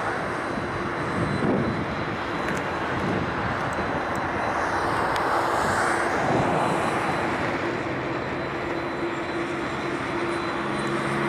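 Boeing 787-8 airliner's jet engines running at taxi power as it taxis past, a steady rushing noise with a faint steady hum tone.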